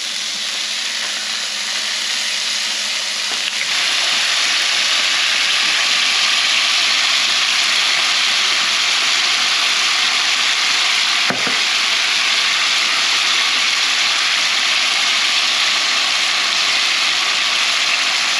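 Salmon belly pieces sizzling in a hot cast-iron skillet with teriyaki sauce in the pan, the sizzle growing louder about four seconds in and then holding steady.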